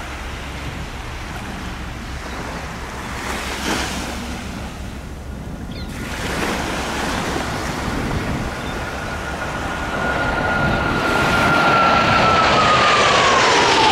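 Wind and surf hiss, then the jet engine noise of a formation of Blue Angels F/A-18 Hornets building from about halfway through. A high whine holds steady and then falls in pitch near the end as the jets pass.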